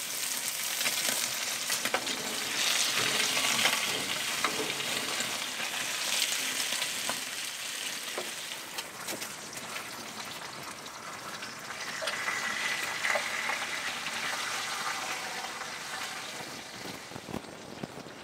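Bacon frying in a pan over a wood fire: a steady sizzle, strong and high, full of small pops and crackles, swelling and easing a couple of times.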